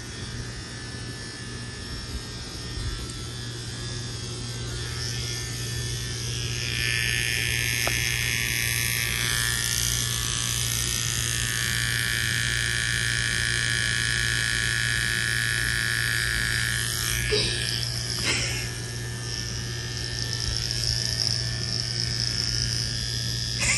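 Cordless T-blade electric hair trimmer running with a steady buzz while shaving off an eyebrow, getting louder and higher about six seconds in as it works against the hair.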